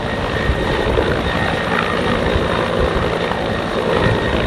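Twin Huey helicopter flying low and close, its rotor and turbine engines running steadily, mixed with the rush of wind and spray from a fast-moving boat.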